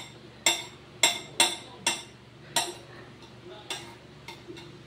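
Kitchen knife chopping soft red gelatin, the blade knocking sharply on the plate beneath with each stroke. Irregular strokes come about every half second, lighter near the end.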